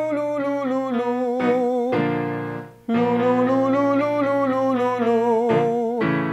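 A male voice sings 'loo' up and down a half-step vocal warm-up pattern over held keyboard chords. There are two phrases, with a short break just under three seconds in.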